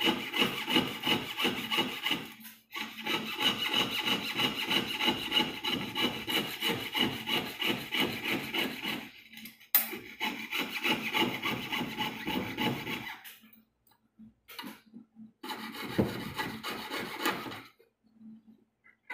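Jeweller's piercing saw cutting through a 1.2 mm sheet of old-coin metal, quick even back-and-forth strokes as the inside of a chain link is sawn out. The strokes pause briefly a couple of times, turn stop-and-start late on, and stop shortly before the end.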